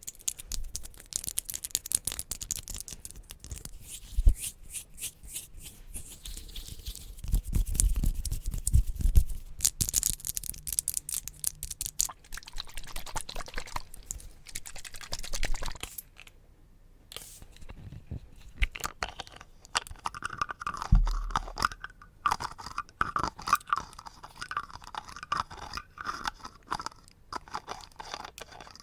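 Close-miked ASMR trigger sounds: a fast run of crisp taps and scratchy, crunchy scraping on objects, breaking off briefly about two-thirds of the way through, then continuing with quick crackly crunching.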